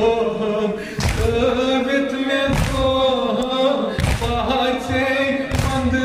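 A man's voice singing a Kashmiri noha (a Shia mourning lament) through a microphone, with a group of men chanting along. Four heavy thumps come in a steady beat about every second and a half: mourners striking their chests (matam) in time with the lament.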